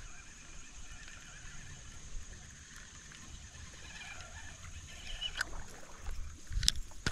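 Quiet outdoor ambience: a steady high-pitched hum with faint wavering animal calls. About six and a half seconds in, a spinning rod is cast, giving a sharp click with low handling rumble around it.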